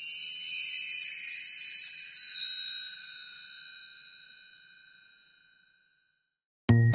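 A bright, high chime sound effect with several ringing tones, sounding once and fading out over about five seconds.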